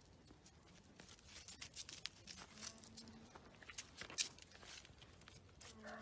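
Irregular crackling and crunching clicks, loudest about four seconds in. Near the end a chicken starts calling.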